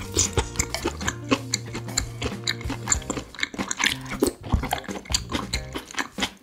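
Close-miked chewing and wet mouth sounds of someone eating chop steak in sauce, with a bite taken about four seconds in, over background music with held low notes.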